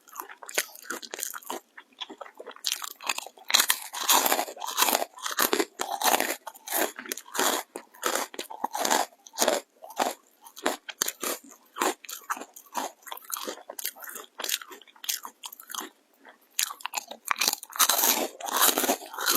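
Close-up crunching of crispy dried jujube (red date) crisps being bitten and chewed, a fast, irregular run of sharp, brittle cracks.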